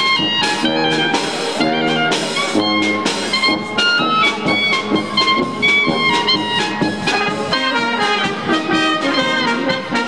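A small brass band of trumpets, tubas and clarinet, with a drum kit, playing a tune.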